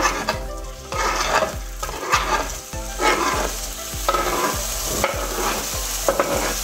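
Chunks of smoked pork chop and chorizo sliding off a wooden cutting board into hot oil in a pot and starting to sizzle, with irregular knocks about once or twice a second as the pieces drop in.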